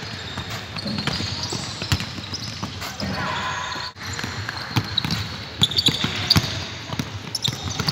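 Several basketballs bouncing on a hardwood court in a large sports hall, a steady irregular patter of thuds from balls being dribbled at once.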